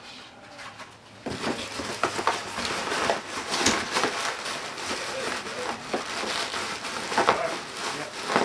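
Pieces of cardboard egg carton being crushed and stuffed into a shipping box as packing: dense scraping and crackling with many small knocks, starting about a second in.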